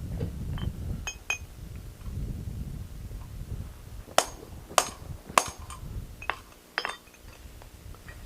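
Hammer blows ringing on steel as a hole is punched through hot flat bar on the anvil. Three sharp strikes come about half a second apart midway, with lighter taps before and after, over a low rumble.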